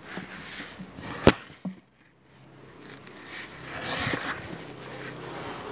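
Handling noise: cloth rubbing and rustling against the phone microphone, with one sharp click about a second in.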